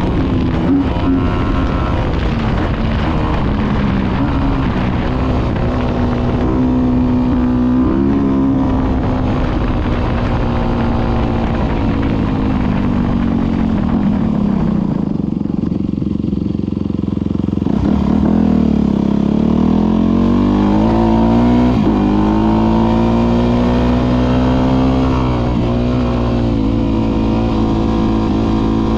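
Motorcycle engine running while riding, its pitch rising and falling with the throttle; it drops low around the middle and then climbs again.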